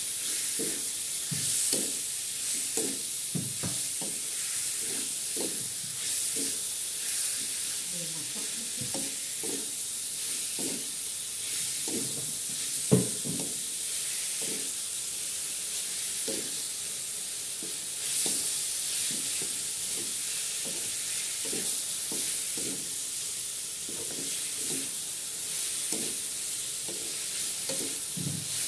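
Pieces of pork frying with a steady sizzle in a metal wok, stirred by a wooden spatula that scrapes and knocks against the pan at an irregular pace; one louder knock about halfway through.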